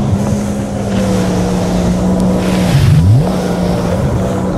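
Jet ski engine running at a steady pitch, with water and wind rushing past. About three seconds in, the engine note dips sharply and climbs back, with a brief surge of rushing water noise.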